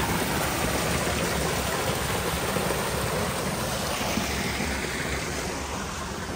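Water pouring from a spout into a stone channel, splashing and rushing steadily. It eases a little after about four seconds.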